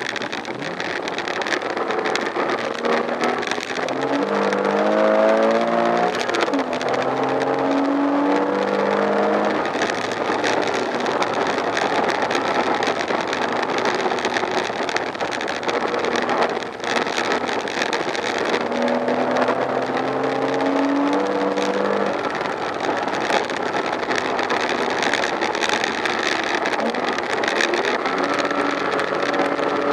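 Porsche Boxster S (987) flat-six engine heard from inside the cabin while driven hard, its pitch climbing under acceleration and falling back at the gear changes, over steady road and wind noise.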